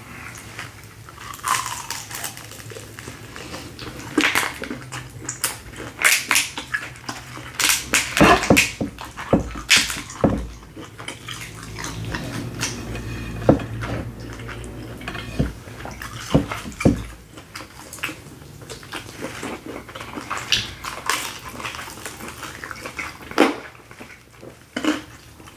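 Close-miked eating of a sauce-covered seafood boil: wet chewing, with irregular clicks and taps of food and fingers against glass bowls.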